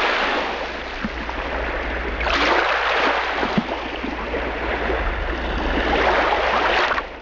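Steady rushing water noise, like surf, with a low hum beneath it. It swells a little over two seconds in and fades out near the end.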